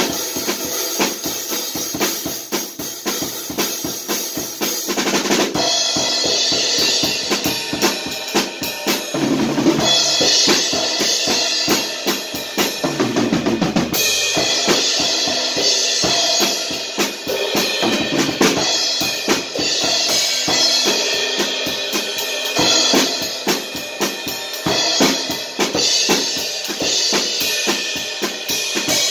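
Acoustic drum kit played without pause in a busy groove: bass drum, snare and cymbals.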